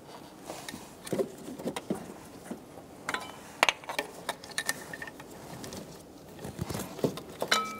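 Scattered light clicks and taps of hands working an oxygen sensor as it is screwed into the exhaust manifold by hand and its wire harness is moved. There are two brief high tones, one a few seconds in and one near the end.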